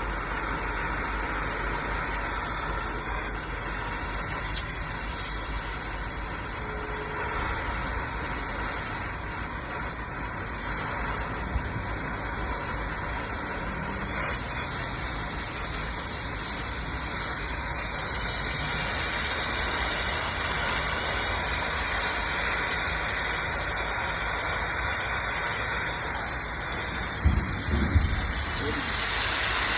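Oxy-fuel gas cutting torch burning with a steady hissing rush of flame and gas. About halfway through the hiss turns sharper and brighter, and a few short knocks come near the end.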